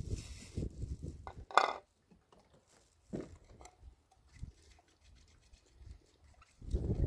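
A plate being washed by hand on a stone slab: scattered light scrapes and clinks, with one louder, sharper sound about one and a half seconds in.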